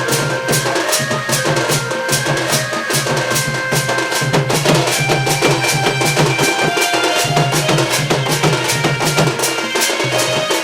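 Sambalpuri folk dance music: fast, steady drumming with sharp strokes in an even rhythm under a held melodic instrument line.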